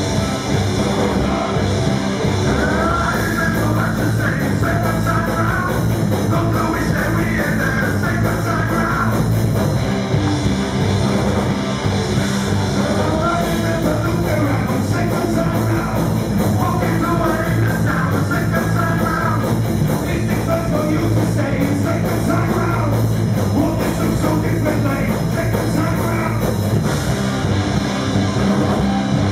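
Live rock band playing loud: distorted electric guitars through Marshall amplifiers, bass and drums, with a man singing over it in phrases that come and go.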